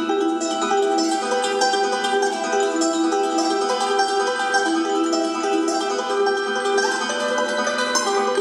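Instrumental music from a live duo: rapid, repeated plucked notes on charango-family string instruments.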